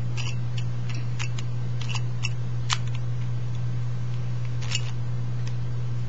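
Plastic Rubik's cube layers clicking as they are turned by hand: irregular sharp clicks, about nine in all, the loudest a little before the middle. A steady low electrical hum runs under them.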